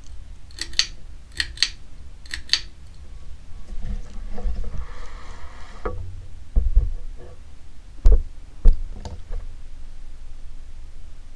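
Ceiling fan pull-chain switch clicked three times in the first few seconds, each pull a sharp double click, over a steady low rumble. A few dull thumps come later.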